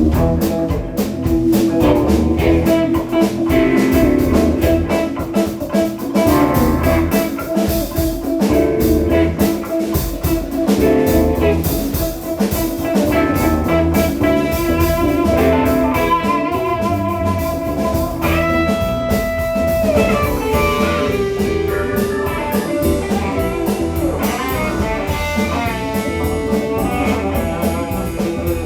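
Live band playing a blues-rock jam: a lead electric guitar plays long held notes over bass and drums.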